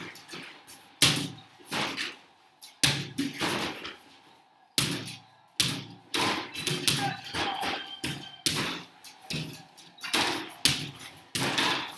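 Basketballs shot at an arcade-style home basketball hoop game: a series of sharp thumps and bangs as balls strike the backboard, rim and return ramp, one every second or two at uneven intervals.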